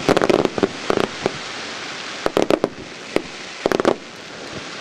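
Firework shells bursting in a rapid-fire starmine salvo: clusters of sharp booms coming a few at a time, with a crackling hiss between them that thins out in the last second.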